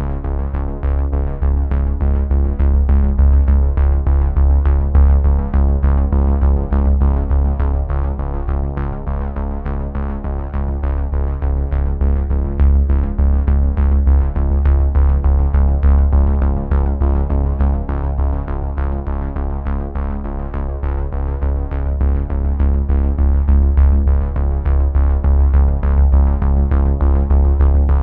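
Background electronic music: sustained synthesizer chords over a heavy bass and a steady drum-machine beat.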